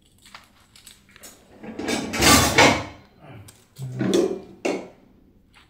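Handling noise from cutting vegetables by hand with a knife: a loud rustle about a second long near the middle, then a few short knocks near the end.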